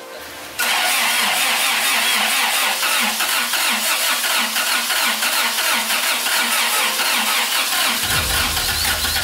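Starter cranking the swapped Honda VTEC four-cylinder engine in a rhythmic chug without it catching, on a first-start attempt with low compression. It starts about half a second in, and a deeper low sound joins near the end.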